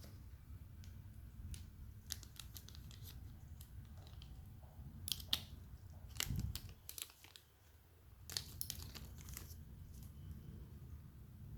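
Packaging being handled and opened: scattered crinkles, tearing and small clicks of wrapping in several short clusters, over a faint steady low hum.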